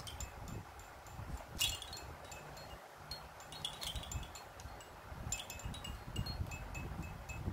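Plastic toys hanging from a baby's Fisher-Price toy arch jingling and clinking as a baby bats at them: scattered small tinkling clicks, one louder jingle about one and a half seconds in and a quick cluster later on.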